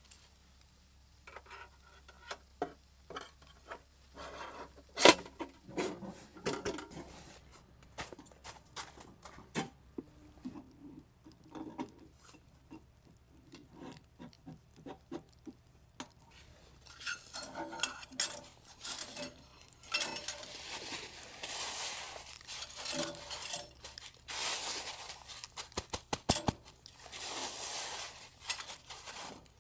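Camp cookware being handled: metal pots, pans and cutlery knocking and clinking. The sounds come as scattered single knocks at first and turn busier and noisier in the second half.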